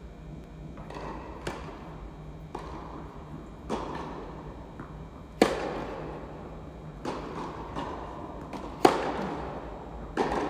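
Tennis balls struck by rackets and bouncing on an indoor court during a baseline rally. Each impact is a sharp pop followed by the hall's echo. The two loudest, closest hits come about halfway through and about three-quarters through.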